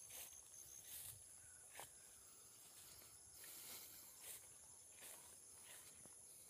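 Faint footsteps through grass, about one step every three-quarters of a second, over a steady high chirring of insects.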